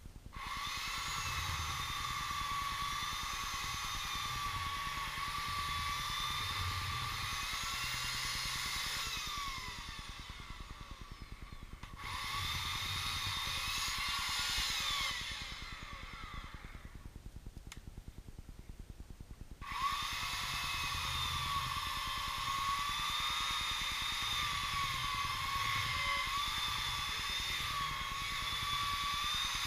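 A high-pitched motor whine whose pitch wavers up and down, running in three spells and cutting out twice, around ten and seventeen seconds in.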